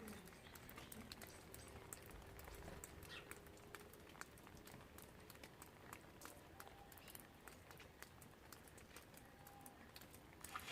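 Faint rain: scattered raindrops ticking and pattering at irregular intervals.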